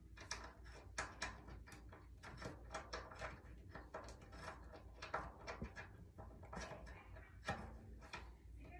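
Faint, irregular clicks, taps and clanks of metal drum hardware being handled and adjusted: a drum's legs and their fittings being worked loose and repositioned.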